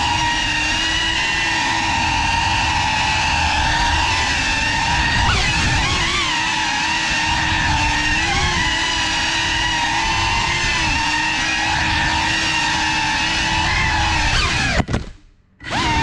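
Motors and propellers of a GEPRC Cinelog35 ducted FPV drone on 6S whining steadily in flight, the pitch wavering up and down with throttle changes. The sound cuts out almost completely for under a second near the end, then resumes.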